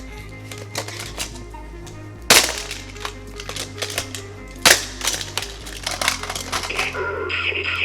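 Background music over the clicking and clattering of Hot Wheels toy cars on a plastic track playset, with two loud sharp clacks about two and a half seconds apart.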